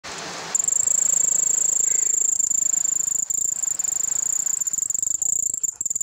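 A cricket calling: a loud, continuous high-pitched trill with a fast flutter, made by rubbing its raised forewings together. It starts about half a second in, after a short hiss.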